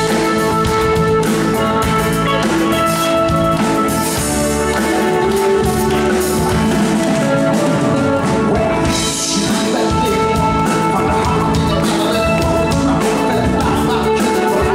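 A live rock band playing at full volume: sustained keyboard chords, electric guitar and a drum kit, with a male voice singing.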